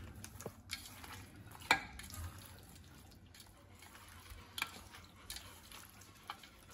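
Hands mixing raw mutton pieces with ginger-garlic paste and salt in a stainless-steel bowl, marinating the meat: faint stirring and rubbing, with a few light clicks.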